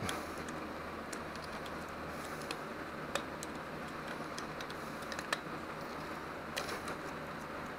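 Small screwdriver tip scraping and ticking against the 10 mm bolt heads in the valley of a GM 5.3 DOD V8, picking out caked dirt: a few faint scattered clicks over a low steady hiss.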